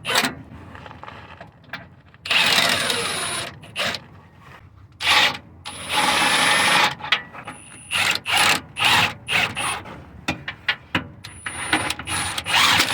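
A power tool spinning a 17 mm nut onto the motor mount bolt, in several bursts of about a second, then many short bursts near the end.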